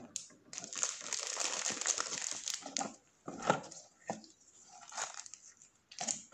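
Paper wrapping and a cardboard takeaway box crinkling and rustling as they are handled with gloved hands, dense for the first few seconds, with one sharp tap about three and a half seconds in, then sparser rustles.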